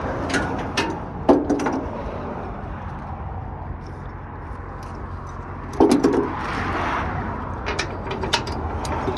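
Metal clinks, knocks and scrapes of a tie-down hook and chain being fastened at the front of a car on a steel trailer deck, with a louder clank about a second in and another about six seconds in, over a steady low rumble.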